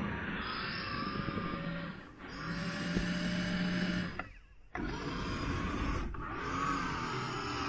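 Electric motor and gearbox of a Traxxas TRX-4 RC crawler whining under throttle as it churns through deep snow. It eases off about two seconds in and cuts out almost completely for half a second a little past the middle before picking up again.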